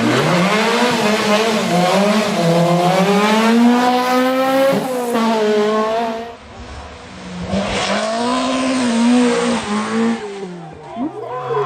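Rally car engine running hard, its pitch climbing and dropping as it revs and shifts, with tyre squeal from the car drifting. The engine eases off and goes quieter about six seconds in, then pulls hard again.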